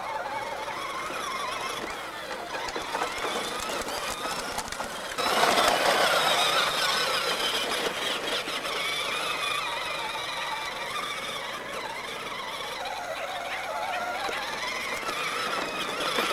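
Bigfoot Power Wheels ride-on truck's electric motor and gearbox whining steadily as it drives over grass, the whine wavering in pitch and getting louder about five seconds in.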